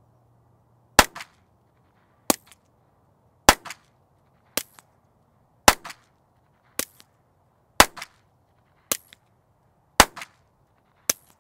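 Ten .22 LR pistol shots from Walther PPK/s pistols firing CCI standard velocity rounds, about one a second. Louder unsuppressed cracks alternate with quieter shots through an AWC Archangel titanium suppressor, and each shot has a short echo just after it.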